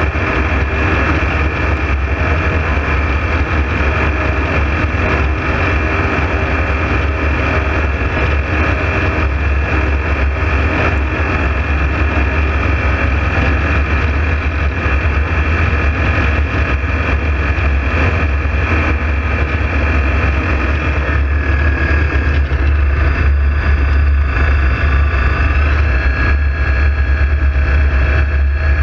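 Ultralight aircraft in flight, heard from the cockpit: a steady engine and propeller drone with wind rush. The engine note shifts slightly about two-thirds of the way through.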